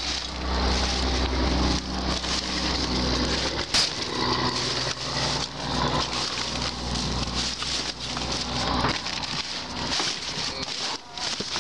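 Hands rummaging through dumpster trash: cardboard, paper and plastic bags rustling and crinkling with small knocks, and one sharp knock about four seconds in.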